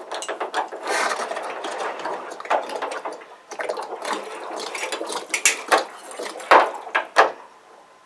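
Irregular metal clicking and rattling as a new water heater heating element is fitted and turned into the tank's element port with an element socket, with a few sharper clicks near the end.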